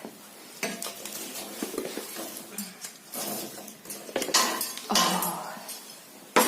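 Irregular knocking, clattering and scraping of pieces of old window-frame wood being handled and laid into a fireplace, busiest about two-thirds of the way through, with a sharp knock at the end.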